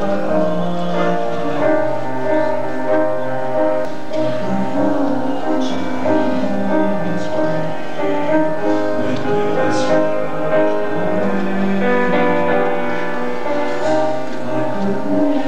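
Music: a song sung with instrumental accompaniment, held notes changing every second or so at a steady level.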